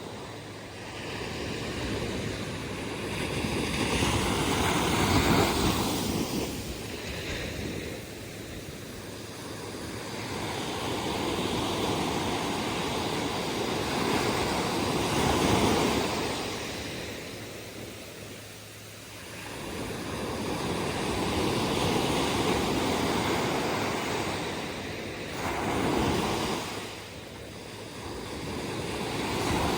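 Ocean surf: waves breaking and washing up the beach, a roar of water that swells and falls back every several seconds, with lulls in between.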